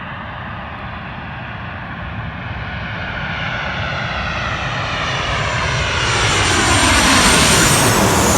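Airplane on landing approach passing low overhead: engine noise swells steadily and is loudest about seven seconds in, its whine falling in pitch as it goes by.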